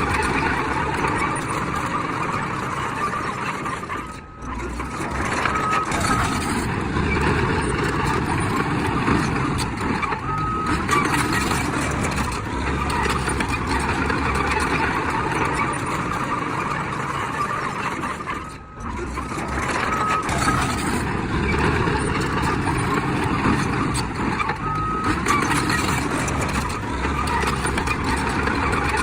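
Heavy diesel earthmoving machinery, a bulldozer, running steadily under work, with short beeps of a reversing alarm now and then. The sound drops out briefly twice, about four seconds in and again near nineteen seconds.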